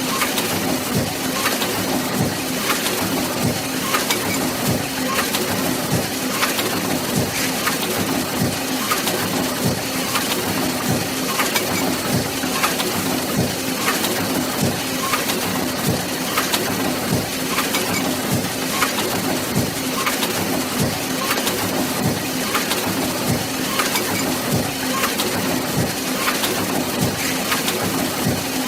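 Book press machine running: a steady hum under dense crackling, with sharp clacks repeating at an even beat.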